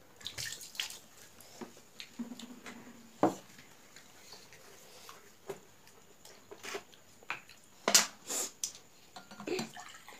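Eating by hand from steel plates: scattered clicks and clinks of fingers and food against the plates, the loudest about three seconds in and a pair near eight seconds.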